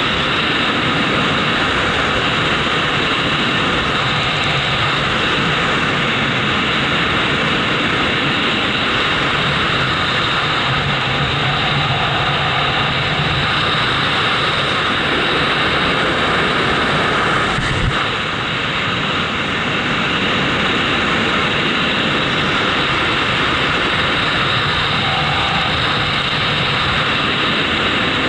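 Steady, loud rushing noise of flight high above the ground, with a short click and a brief dip about eighteen seconds in.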